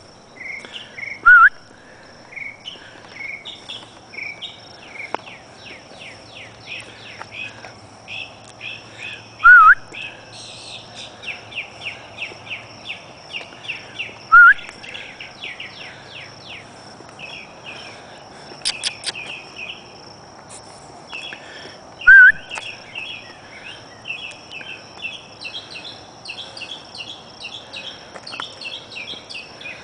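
Outdoor dawn chorus: songbirds singing in quick runs of chirps over a steady high insect trill. Four times a loud, short whistled note rises and falls, the loudest sound here.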